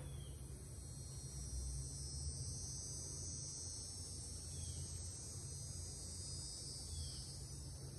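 Faint, steady high-pitched insect chirring, swelling a little through the middle, over a low hum.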